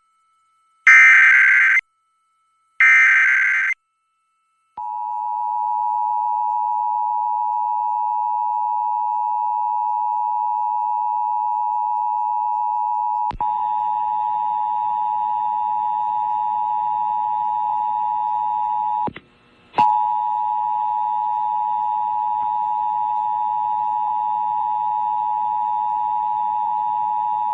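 Emergency Alert System SAME header: two short, harsh data bursts, then the EAS two-tone attention signal, a steady loud tone that holds for over twenty seconds with a brief break about two-thirds of the way through. A faint hiss joins the tone about halfway.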